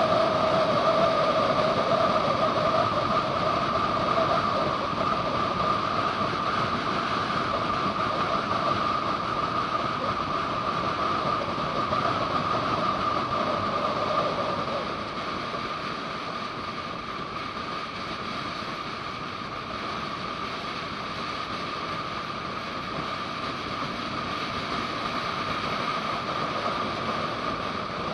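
Motorcycle on the move at a steady road speed, recorded from the handlebars: a continuous engine drone mixed with wind rush. It eases a little about halfway through, the lower part of the drone dropping away.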